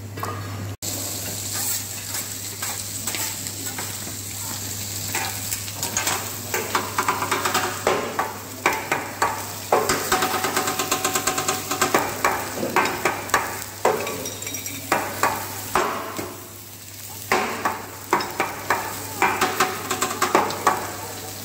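Fried rice and chicken sizzling on a teppanyaki steel griddle, with a metal spatula clacking and scraping against the hot plate in quick runs of taps from about six seconds in.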